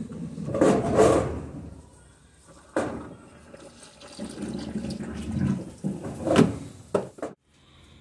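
Water sloshing and splashing in swells as laundry is washed, with a sharp knock about three seconds in and a few more knocks near the end before the sound cuts off suddenly.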